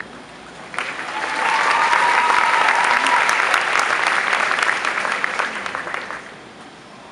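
Audience applause, breaking out about a second in and dying away after about six seconds.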